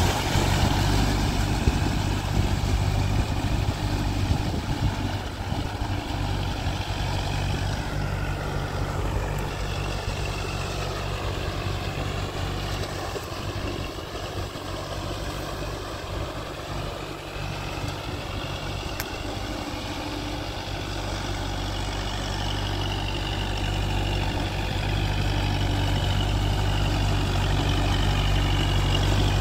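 Kubota MU4501 tractor's four-cylinder diesel engine running steadily under load while its cage wheels churn through a flooded paddy field. It is fainter in the middle and louder again near the end as the tractor comes back close.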